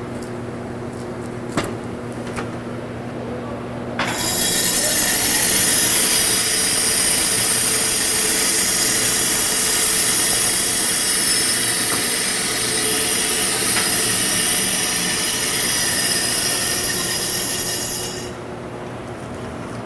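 Stainless steel food-industry band saw (Marel / AEW Delford) running with a steady hum, with a couple of knocks as onions are set on its table. About four seconds in, a loud, high-pitched shrill starts as the blade cuts through a batch of red onions pushed along its sliding table, lasting about fourteen seconds before it stops and the saw drops back to its hum.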